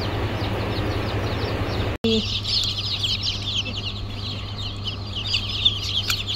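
A steady machine hum with faint peeping, then, from a cut about two seconds in, a crate of newly hatched chicks peeping constantly, many short falling chirps overlapping.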